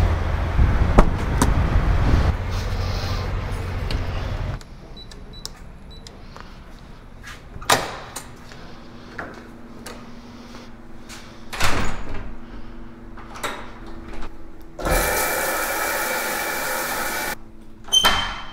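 A sequence of getting-ready sounds. It opens with a truck engine idling as a low rumble for the first four and a half seconds. Then come a quiet room with scattered clicks, knocks and a steady hum, and near the end a shower spraying for about two and a half seconds before it cuts off.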